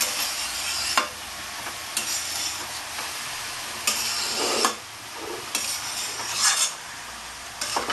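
A flat spatula scraping and turning shredded cabbage and potatoes around a black kadai, a scrape about every second, over a steady frying sizzle.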